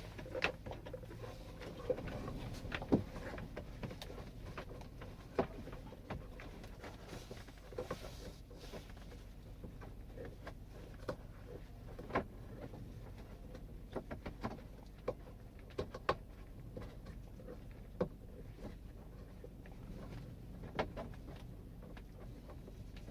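Light irregular clicks, taps and rustles of stereo wiring and plastic dash parts being handled and pushed through the dash, over a faint steady low hum.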